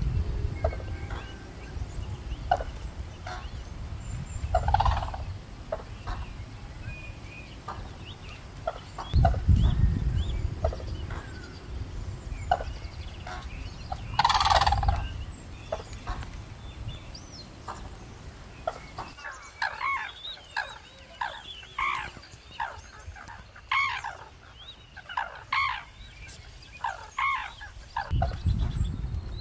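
Red-crowned cranes calling: scattered calls, one loud call about fourteen seconds in, then a run of calls roughly once a second near the end. Bursts of low rumble at the start, around ten seconds in and at the end.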